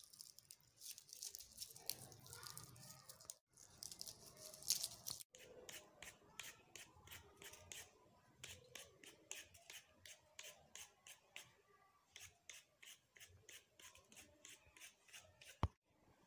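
Fresh red carrots being scraped by hand, the skin rasped off in faint, quick, even strokes about three a second.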